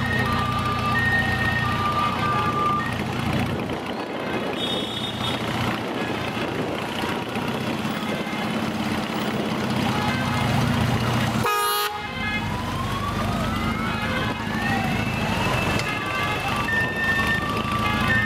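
Motorcycle engines running steadily in a slow-moving parade. A two-tone emergency-vehicle siren alternates between a high and a low note for the first few seconds and again near the end, with rising and falling siren sweeps in between. A short horn toot sounds about twelve seconds in.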